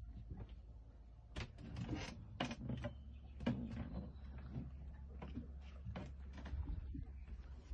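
Irregular knocks and clicks over a low steady rumble, the knocks most frequent in the first half.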